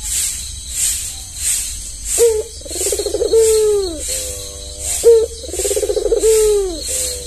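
Albino Barbary dove (puter) cooing: two long rolling coos about two seconds apart, each opening with a short sharp note and ending in a drawn-out falling tone. A faint high hissing pulse repeats behind it, roughly every two-thirds of a second.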